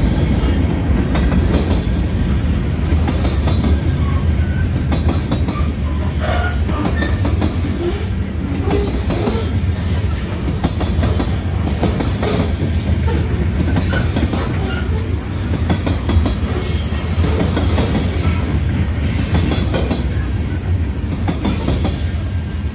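Loaded covered hopper cars of a freight train rolling past, a steady loud rumble and clatter of steel wheels on the rails, with a few short wheel squeals in the middle.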